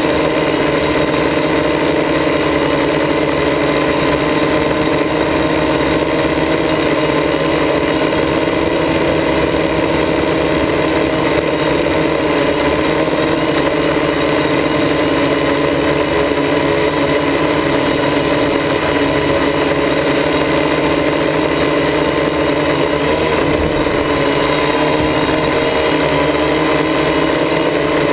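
Quadcopter's electric motors and propellers whirring steadily close to the mic, a hum of several steady tones that wavers briefly in pitch about three quarters of the way through.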